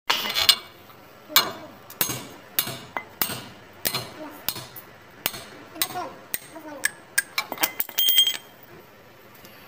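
Metal tool knocking on a stuck hydraulic brake wheel cylinder on an Isuzu 4HG1 truck's drum-brake backing plate, working to free the seized pistons. The sharp metallic knocks come irregularly, one or two a second, and a quick rattle of clinks with a brief ringing comes about eight seconds in.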